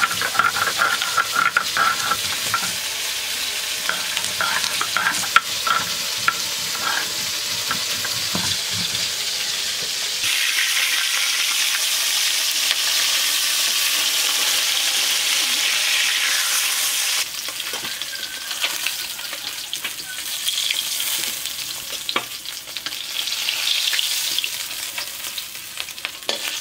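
Pieces of bata fish frying in oil in an iron wok, a steady sizzle that grows louder and denser about ten seconds in, with the metal spatula scraping and turning the fish. For the first third, a stone grinder rubbing and knocking on a flat grinding stone as green chillies are ground mixes with the sizzle.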